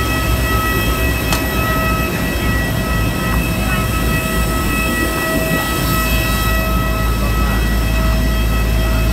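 Loud, steady engine noise on an airport apron: a heavy low rumble with several steady high whining tones over it, unchanging throughout.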